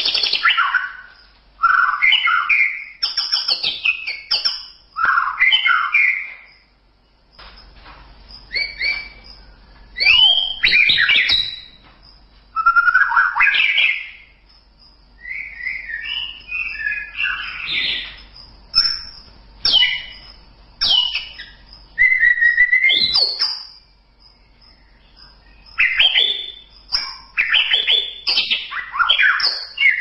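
White-rumped shama singing: a long series of varied song phrases, each a second or two long, made of rising and falling notes, separated by short pauses.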